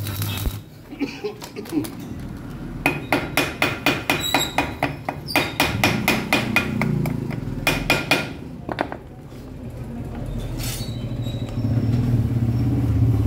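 Small hammer rapidly tapping a freshly welded broken bolt in a steel part, sharp ringing metallic blows several a second for about five seconds, to shock the seized bolt loose. A short crackle of the stick-welding arc comes right at the start, and a low hum builds near the end.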